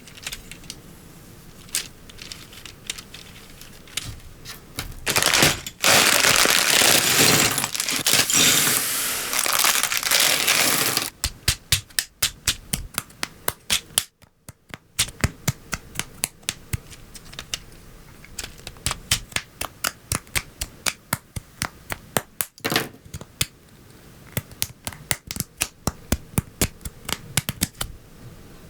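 LEGO Technic pieces clicking and snapping together by hand, in many sharp separate clicks. About five seconds in, a loud continuous rattle of loose plastic pieces runs for several seconds, then the quick clicking of parts being fitted resumes.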